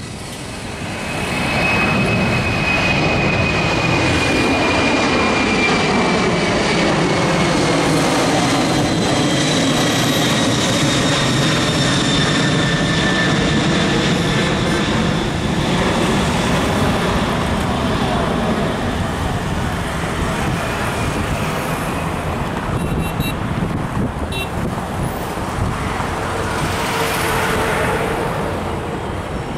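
Boeing 747's four jet engines on a departure climb passing overhead, a loud steady roar that builds about a second in. A high fan whine slowly falls in pitch as it goes by, and the roar eases off near the end.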